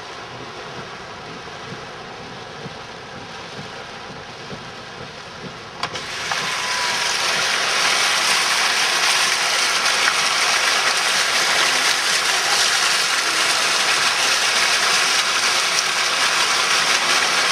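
Car driving through floodwater, a steady rush of water and tyre noise. About six seconds in there is a click, and the water rush becomes much louder and hissier for the rest of the time.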